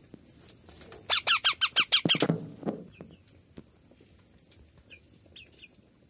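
Indian ringneck parakeet chick giving a quick run of about nine loud, harsh calls over about a second, followed by a few faint chirps near the end.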